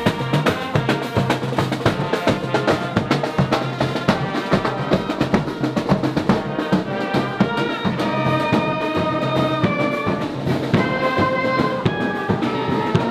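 Street marching band playing: snare and bass drums beating busily, with brass and saxophone carrying a melody that comes forward about six seconds in.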